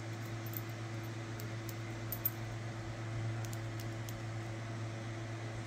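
Steady low hum with faint background hiss in a small room, with a few faint small clicks.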